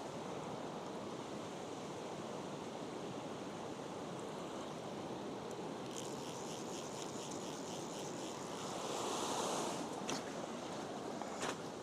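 River water rushing steadily over rocks, swelling slightly about three-quarters of the way through. Past the middle there is a faint, rapid, high-pitched ticking for about two seconds, and a few sharp clicks come near the end.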